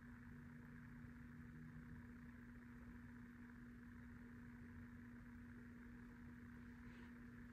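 Near silence: quiet room tone with a steady electrical hum.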